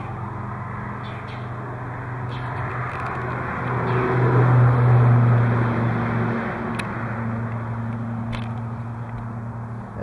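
Steady engine hum of road traffic that swells to its loudest about halfway through as a car passes, then eases off; it is loud enough to be called 'all this noise'.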